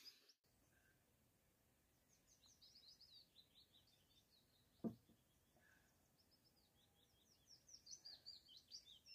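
Near silence with faint songbird chirping: two spells of quick, high, falling chirps. A single short knock sounds about five seconds in.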